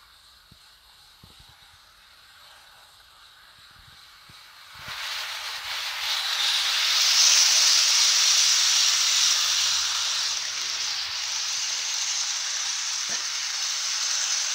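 Hornby OO gauge model train (a King class locomotive with ten Mk1 coaches) running flat out on a circle of track: a few faint ticks, then, about five seconds in, a steady high hiss of wheels on rail and motor swells up and stays loud.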